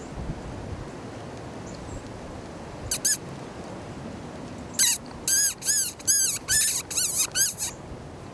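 Predator call making high, rodent-like distress squeaks: a quick pair about three seconds in, then a run of about ten rapid squeals, each rising and falling in pitch.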